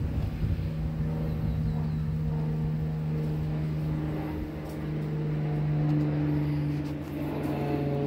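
A steady motor drone: a low, even hum with overtones that grows louder a few seconds in, with a few faint ticks over it.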